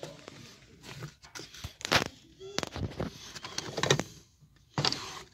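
A series of sharp, irregularly spaced knocks and clicks, about half a dozen over a few seconds, like objects being handled or set down.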